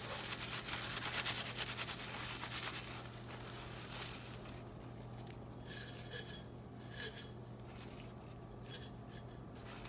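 Paper towel rustling and crinkling as cut lemongrass blades are rubbed in it and stuffed into a glass jar. It is busiest over the first three seconds, then goes fainter with a few light ticks.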